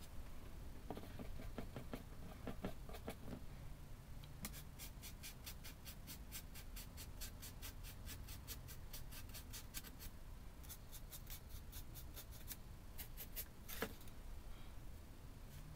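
Small paintbrush dry-brushing red paint onto textured brick wall pieces: quick scratchy bristle strokes, about five or six a second, in two long runs. A single sharp click near the end.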